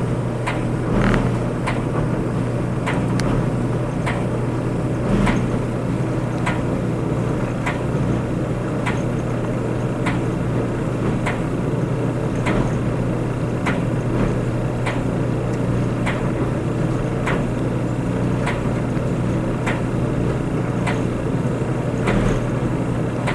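Clothes dryer running: a steady motor-and-drum hum with a light click repeating about once every second and a bit.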